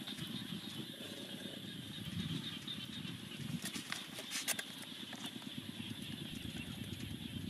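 Open wood fire crackling, with a cluster of sharp pops about four seconds in, over a steady low rumble.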